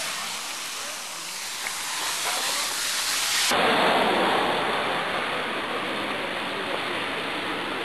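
Steady, hissing rush of noise from a handheld camera's microphone being jostled and rubbed while its carrier hurries on foot. About three and a half seconds in it turns duller and fuller.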